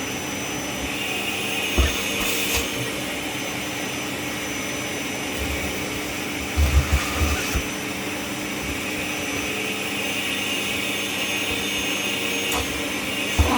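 Kärcher WD 6 P wet and dry vacuum cleaner running steadily, a constant motor hum with airy hiss, broken by a few low thumps about two seconds in and a cluster around seven seconds.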